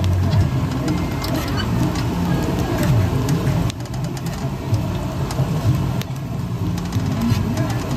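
Busy market crowd: many people talking at once over a steady low rumble, with scattered clicks and knocks.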